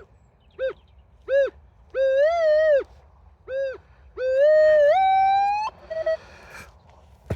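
A Minelab Equinox 800 metal detector giving a target tone over a buried signal reading 18–19. It sounds five pitched beeps, one per sweep. The last tone is long and steps up in pitch, rising until it cuts off.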